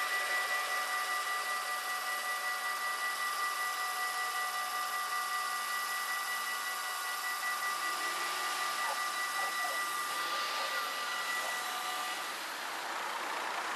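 Level-crossing warning bells ringing with rapid, even strikes while the barriers rise, the signal that the crossing is clearing. The ringing stops about twelve seconds in, as the barriers come fully up.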